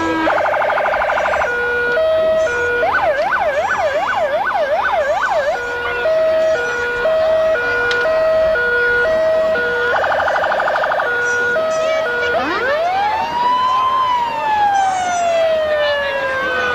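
Police car electronic sirens cycling through modes: a fast warble, a two-tone hi-lo alternation, a repeating yelp of about three sweeps a second, the fast warble again, then a long wail that rises steeply about twelve seconds in and slowly falls.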